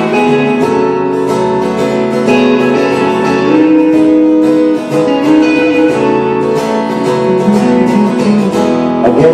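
Two guitars, one of them acoustic, played live in an instrumental passage of a folk-rock song, with plucked and strummed chords and no singing.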